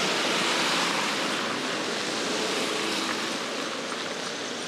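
Car tyres hissing on wet asphalt as a car passes close by, the hiss loudest at the start and slowly fading.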